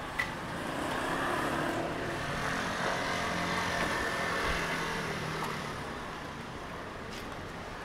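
City street traffic: the noise of a passing vehicle swells over the first few seconds and fades towards the end, with a short click just at the start.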